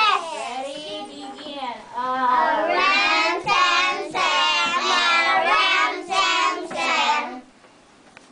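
A class of young children singing a short song together in a steady rhythm. The song stops near the end.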